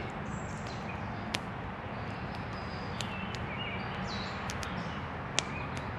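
Steady distant expressway traffic drone, with a few short high chirps and several sharp clicks scattered over it.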